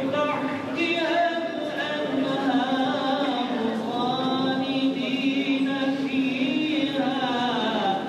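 Slow, mournful chanted singing in long held notes that glide slowly up and down between pitches, in the manner of a funeral lament (ağıt).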